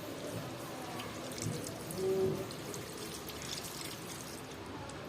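Hands being washed with water: steady wet rubbing and trickling, with a short hum-like tone about two seconds in.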